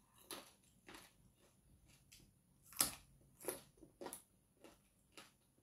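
A person chewing a crunchy raw vegetable: faint, irregular crunches and mouth clicks, the loudest about three seconds in.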